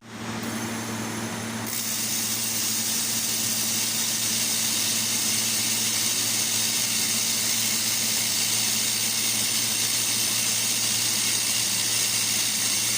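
Fiber laser welding machine running: a steady hiss over a low, even hum, which grows brighter about a second and a half in and then holds constant.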